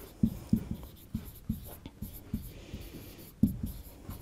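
Felt-tip marker writing on a whiteboard: a string of short taps and strokes, about two or three a second, as letters are written.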